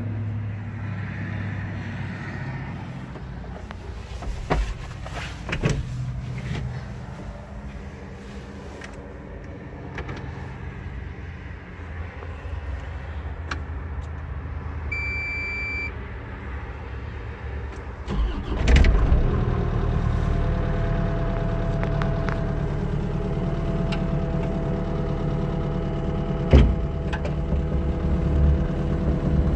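Caterpillar 305E-2 mini excavator's diesel engine running, heard from inside the cab, with scattered clicks. A short high beep sounds about halfway through. About two-thirds in there is a sharp knock, after which the engine runs louder.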